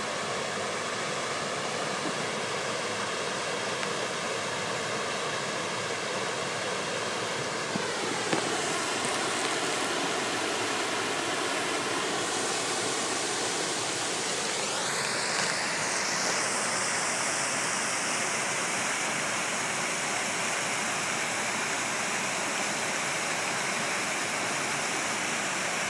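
Small waterfall spilling over a stone ledge into a creek: a steady rush of falling water that turns brighter and more hissing about halfway through.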